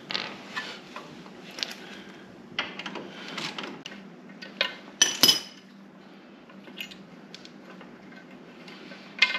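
Scattered metallic clinks and knocks of a socket wrench and loose metal floorboard hardware being handled, loudest as a sharp double clank about halfway through.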